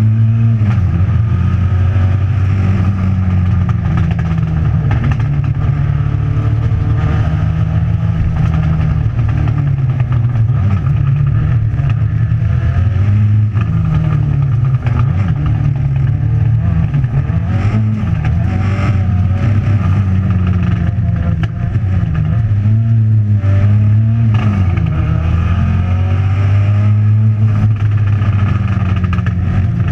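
Race-prepared hatchback's engine running hard under full load. Its pitch climbs and drops again and again, with short breaks where the driver changes gear, heard from inside the stripped, roll-caged cockpit.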